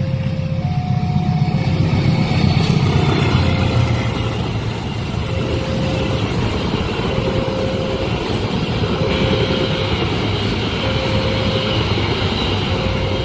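A train running past a level crossing, a loud, steady rumble of wheels on rails that is loudest a few seconds in, while the crossing's electronic warning bell repeats a short tone every couple of seconds.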